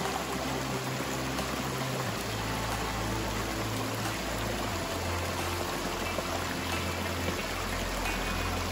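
Steady rush of river water flowing over rocks, with background music of low held notes that change every second or two.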